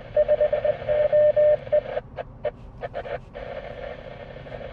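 Morse code from a hidden ham radio fox transmitter heard through a ham radio speaker: a single beeping tone keyed on and off over radio static. The tone stops about two seconds in, and after a few short blips only the hiss remains. The fox is sending CQ.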